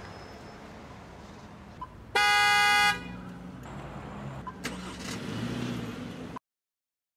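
Car horn sounds one steady blast of under a second, about two seconds in, over street ambience. A car engine then runs low as the car moves off, and the sound cuts off abruptly near the end.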